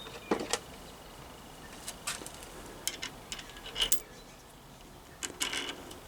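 Small metal motorcycle parts, washers and handlebar P-clamps, clicking and clinking as they are handled and fitted: a handful of light, scattered taps, with a small cluster near the end.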